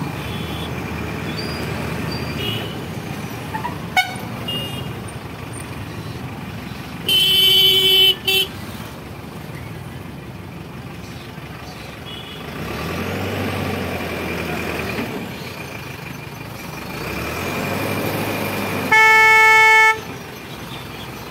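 Horn blasts over a steady bed of traffic noise. A short double honk comes about seven seconds in, and a single blast of about a second comes near the end, between louder swells of passing-vehicle noise.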